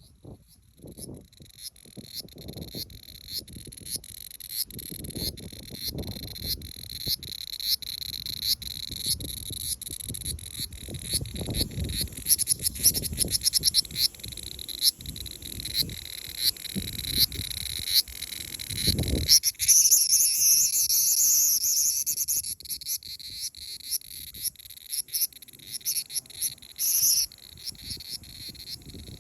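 Cicadas singing in a steady pulsing chorus, about two pulses a second, over low rustling from handling. About twenty seconds in, a much louder harsh buzz breaks out for a couple of seconds, with a short one again near the end: a cicada squawking when grabbed by hand.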